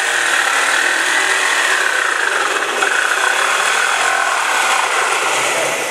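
Handheld electric power tool running continuously against a wooden board, its motor whine dipping in pitch around the middle and coming back up, then easing off at the end.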